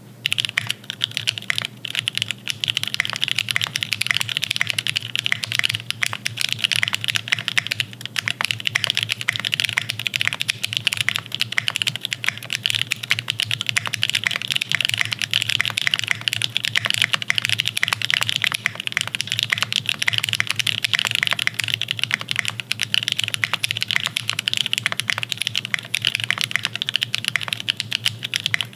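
Continuous fast typing on a custom-built mechanical keyboard: a dense, unbroken stream of sharp key clacks.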